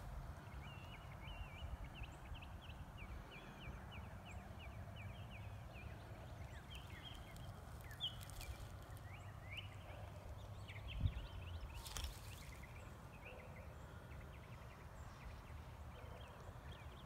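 Faint woodland ambience: a continuous chorus of short, high chirps from wild animals, over a low rumble. A single soft knock about eleven seconds in.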